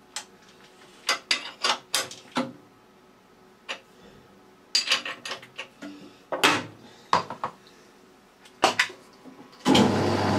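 Sharp metallic clinks and knocks in scattered bursts as the lathe drawbar is tightened with a spanner and the spindle is turned by hand. Near the end a steady motor hum starts up.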